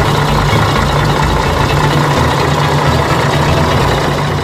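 Bus engine running steadily with a deep, pulsing rumble.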